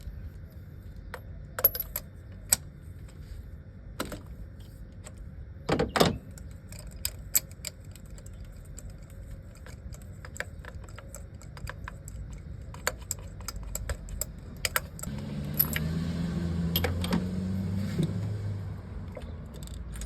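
Metal clicks and clinks of hand tools at work, scattered and irregular, as a spark plug is taken out of the engine's cylinder 3, with a louder cluster of knocks about six seconds in. A low hum joins for a few seconds near the end.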